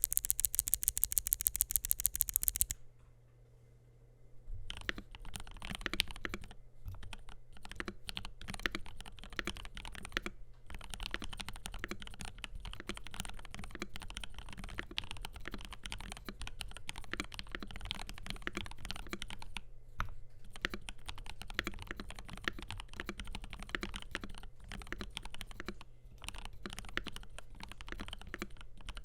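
Typing on a FiiO KB3 mechanical keyboard with lubed Gateron G Pro 3.0 Yellow linear switches, stainless steel plate and polycarbonate keycaps: a fast, very even run of loud sharp clicks for the first few seconds, a short pause, then steady irregular typing with brief breaks.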